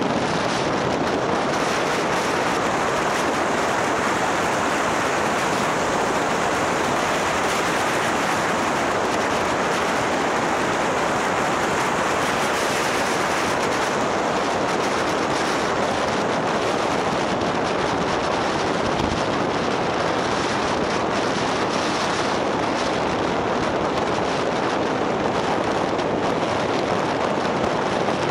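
Steady wind rush over the microphone of a camera on a moving motorbike, a constant loud roar that covers the engine.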